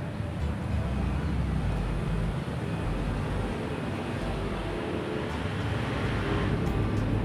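Steady low rumble of outdoor background noise, with a broad hiss that brightens a little near the end.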